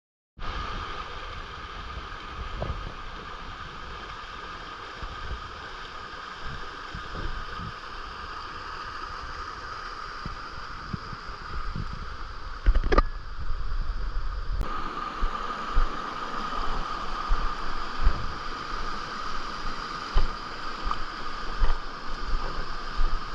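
Steady outdoor ambience in the jungle: a constant high drone of several held pitches over a hiss, with frequent low thumps and rumble of wind and handling on the microphone that grow louder after a cut about two thirds of the way in.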